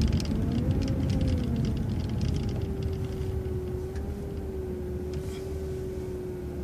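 City bus engine running inside the cabin, a low rumble with a steady whine, getting quieter as the bus slows for a traffic light.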